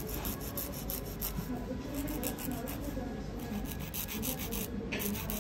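Nail file rubbing back and forth across fingernails in quick, even strokes, about four or five a second.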